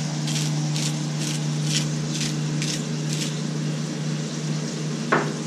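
Hand-twisted salt grinder milling sea salt, in short gritty strokes about two a second that stop about three seconds in, over a steady low hum. A single sharp knock about five seconds in.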